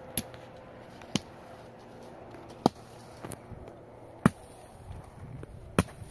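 Six sharp, short knocks at an uneven pace, roughly one a second, over a low steady background.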